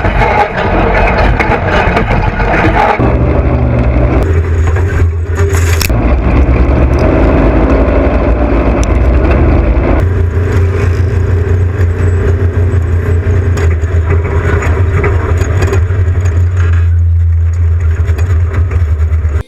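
Off-road race vehicle's engine running hard and loud, its note changing a few times as the throttle and gears change.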